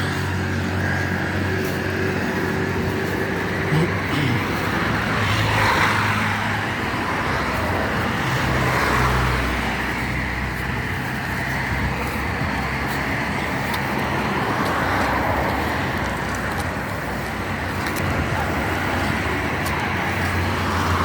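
Road traffic: a steady wash of tyre and engine noise, with vehicles swelling past every few seconds.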